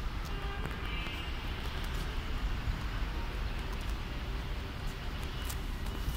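Outdoor background noise: a steady low rumble with faint scattered clicks.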